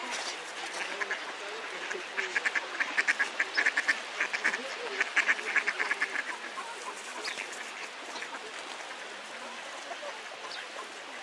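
A flock of mallards quacking, with a fast run of short, loud calls for a few seconds in the middle.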